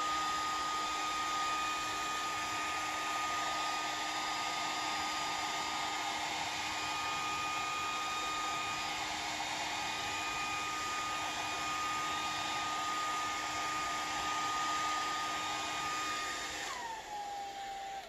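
Conair 1875 handheld hair dryer blowing steadily, a rush of air with a steady whine from its motor. Near the end it is switched off and the whine falls in pitch as the motor winds down.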